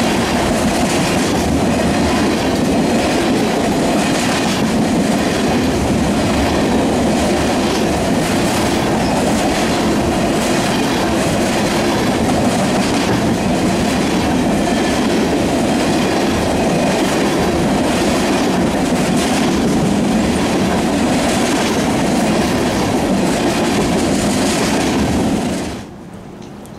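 Freight train of tank cars rolling past close by at speed: a steady rumble of steel wheels on rail with a repeated clickety-clack over the rail joints. Near the end it cuts off abruptly to a much quieter steady hiss.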